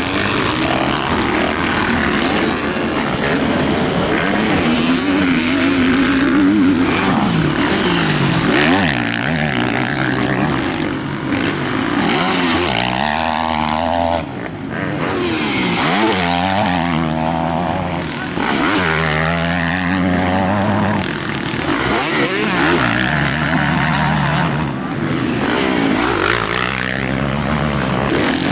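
Motocross motorcycle engines racing past, revving hard and easing off so the pitch climbs and drops over and over as riders work the throttle and shift gears.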